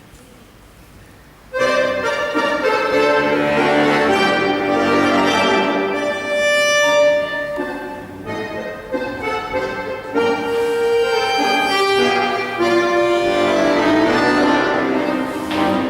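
Accordion music, a melody over chords, starting abruptly about a second and a half in after quiet room tone.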